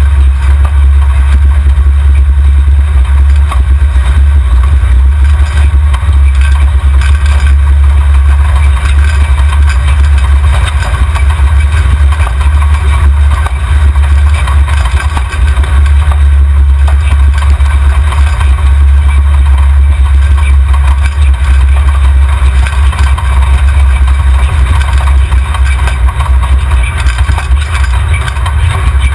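The engine of a tube-frame off-road 4x4 running, heard from under the chassis by the rear axle as a loud, steady low drone.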